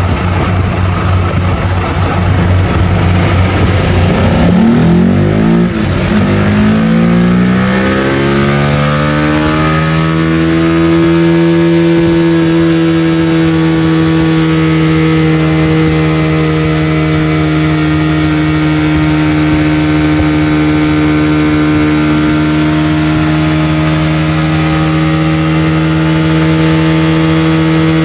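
Honda fuel-injected scooter engine revving up over several seconds, then held at a steady high speed for a timed run in an engine-oil test.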